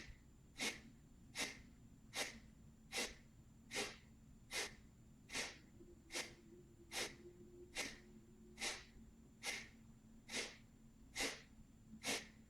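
Kapalabhati breathing: a steady series of short, forceful exhalations through the nose, a little more than one a second.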